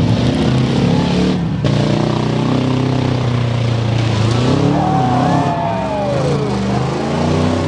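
Engines of several small derby pickup trucks revving hard, their pitch sweeping up and down as they accelerate and slow through the arena dirt.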